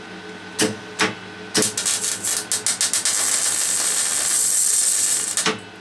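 MIG welder tack-welding thin steel chair-frame tube. A few short arc strikes come about half a second apart, then a sputtering start, then a steady crackling, hissing arc for about two and a half seconds that cuts off just before the end.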